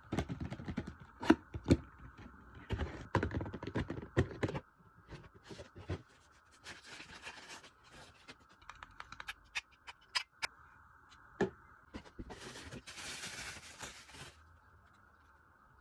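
Camera box and its packaging being handled and opened: a dense run of clicks, knocks and scrapes for the first few seconds, then scattered taps and two spells of rustling, the longer one near the end, over a faint steady hum.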